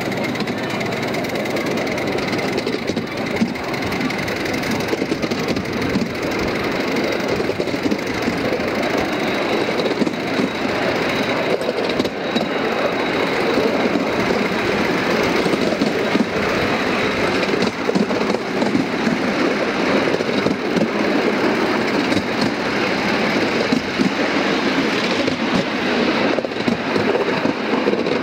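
5-inch gauge miniature steam locomotive and riding car running steadily along a raised track: a continuous rapid clatter of small wheels on the rails with the engine's running noise.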